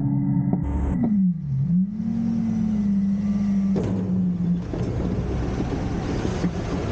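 Garbage truck engine running with a steady hum that drops in pitch about a second in, then comes back up and holds. A rougher rumbling noise joins in from about four seconds.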